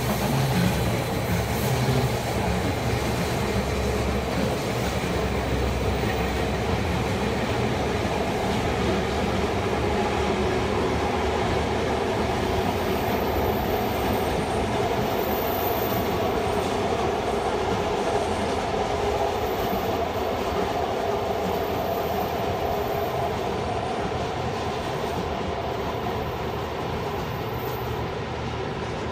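Rhaetian Railway electric passenger train running past on the Bernina line: a steady rumble of wheels on rail with a faint held tone, easing slightly toward the end as it moves away.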